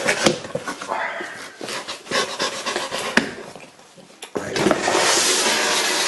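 Cardboard shipping box being opened by hand: knocks and rustles as the flaps are handled, then, from about four and a half seconds in, a steady loud scraping rustle of cardboard.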